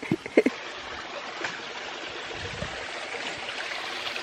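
Creek water running steadily, a continuous even rush. Two brief short sounds stand out right at the start.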